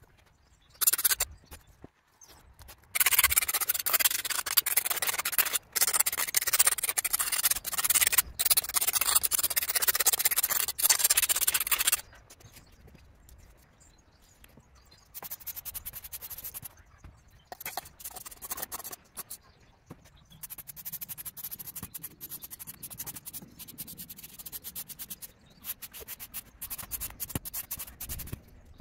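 Scraping and scrubbing on a hard surface. A short burst comes about a second in, then about nine seconds of loud, continuous scraping, then quieter, broken strokes.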